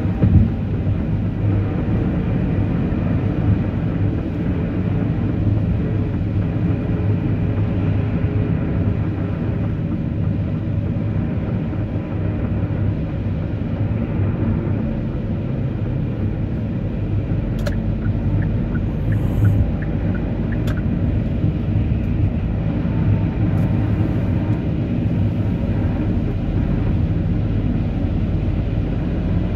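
Steady low rumble of a car driving, engine and tyre noise on a winter road, with a few faint clicks about two-thirds of the way through.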